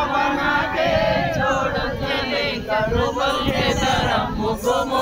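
Group of voices chanting together in a Muharram devotional chant, without instruments.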